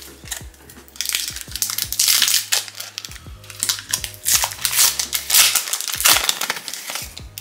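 Foil wrapper of an Upper Deck Trilogy hockey card pack being torn open and crinkled by hand, in repeated bursts of crackling.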